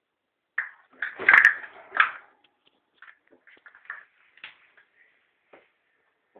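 A ferret scuffling over food: a burst of short knocks and scrapes about a second in, with one sharp click, then softer scattered clicks and scrapes.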